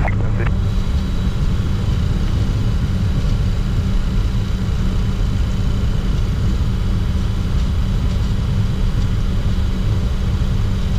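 Steady cockpit noise of a Bombardier Challenger 604 on the ground with its GE CF34 turbofans at idle: a constant low rumble with a faint high whine on top.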